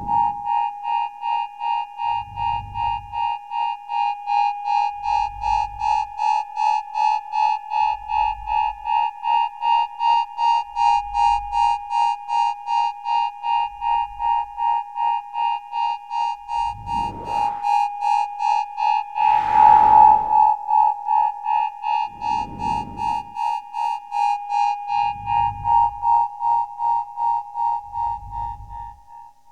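Synthesized electronic timer-style beeping: a steady high beep repeating about twice a second over a deep bass pulse every few seconds. A rising sweep and then a loud swell of noise come a little past halfway.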